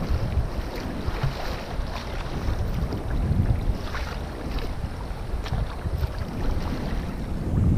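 Wind gusting on the microphone over choppy sea water, with scattered short splashes.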